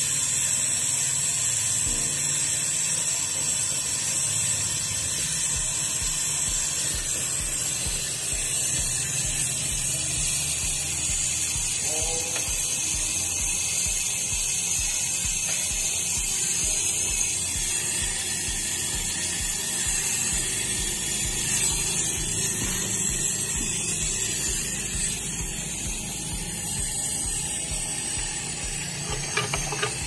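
Gas brazing torch flame hissing steadily while copper refrigerator pipe joints are brazed.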